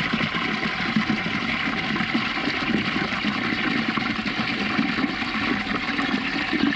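Water running steadily from an outdoor faucet into a plastic bucket, splashing as the bucket fills.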